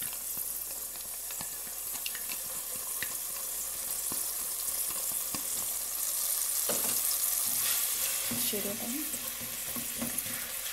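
Chopped onion sizzling in hot olive oil in a metal pan, with the scrape and tap of a spatula stirring it. The hiss swells louder a few seconds in.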